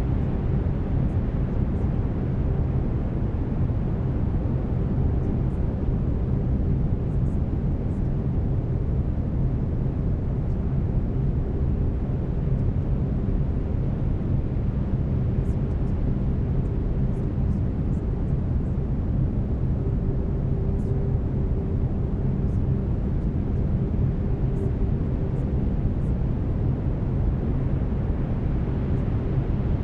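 Steady brown noise: an even, deep hiss weighted toward the low end, with a faint steady tone beneath it from the binaural-beat delta-wave layer.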